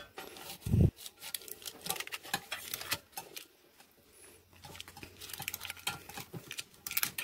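Fingers pressing and patting sticky oat-flour crust dough into a parchment-lined metal loaf pan, giving many soft irregular taps and clicks, with a dull thump just under a second in.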